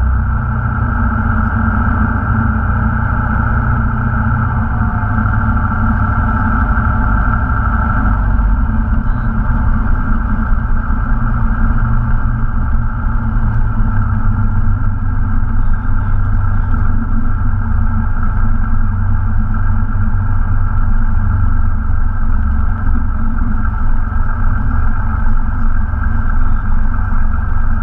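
Cessna 172 Skyhawk's piston engine and propeller running steadily, heard from inside the cockpit as the plane rolls along the runway. A high steady tone over the engine sound stops about eight seconds in.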